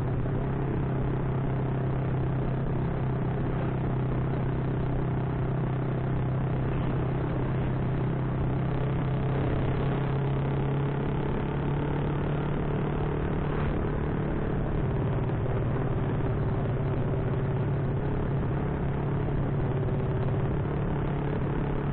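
Honda Supra underbone motorcycle's single-cylinder four-stroke engine running at a steady pace while being ridden.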